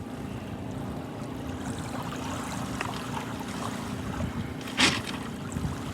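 Steady outdoor wind on the microphone, with ocean surf behind it and one brief loud burst of noise near the end.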